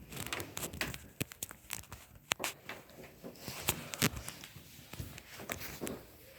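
Irregular soft clicks, knocks and rustles of close handling and movement, scattered through the whole stretch with a few sharper clicks about two and four seconds in.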